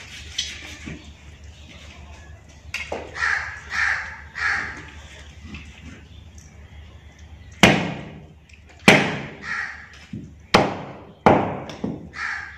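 Heavy cleaver chops into a cow's trotter on a wooden log block: four hard blows in the second half, each with a short ring-out. In the background a crow caws, three caws in a row about three seconds in and more near the end.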